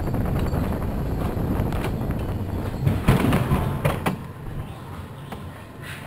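Bobsled cart's wheels rumbling along steel rails, with a cluster of sharp clatters about three seconds in; the rumble then falls away as the sled slows.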